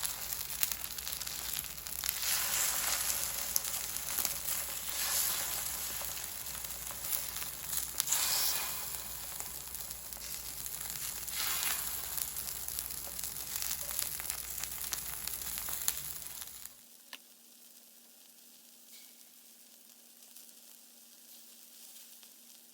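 Food frying, a steady sizzle with small crackles and pops. It cuts off abruptly about seventeen seconds in, leaving only a faint low hum.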